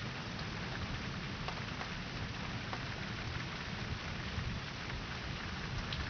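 Steady rain falling during a thunderstorm, with a few faint drip ticks.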